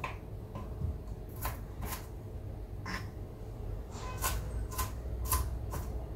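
Kitchen knife cutting long green peppers on a cutting board: a string of sharp, irregular taps as the blade meets the board, about ten in six seconds.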